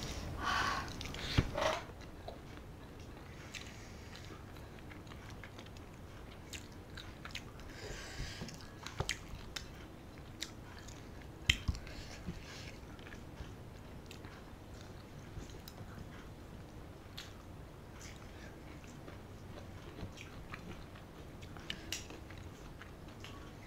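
Quiet eating sounds: chewing, and fingers working rice and curry on a stainless steel plate, with scattered light clicks.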